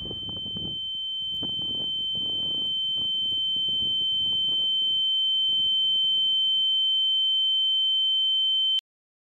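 A steady high-pitched ringing tone, the ear-ringing sound effect films use for shock, swelling louder over faint muffled low sounds that fade out beneath it, then cutting off suddenly near the end.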